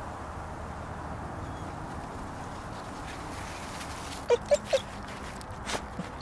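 A Shiba Inu whines three times in quick succession, short high-pitched whimpers a little over four seconds in, over a steady outdoor background hiss. A few short crackles follow near the end.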